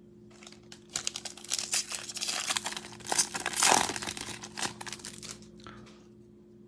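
Foil wrapper of a Bowman baseball card pack crinkling as it is torn open by hand and peeled off the cards. The crackling is loudest about halfway through.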